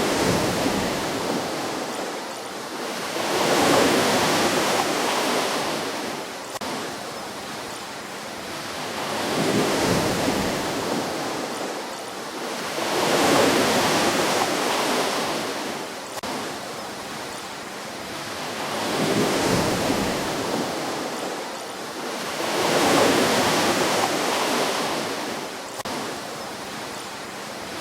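Ocean waves gently breaking and washing onto a shore: a rushing hiss that swells and fades with each wave, about six waves, coming every few seconds.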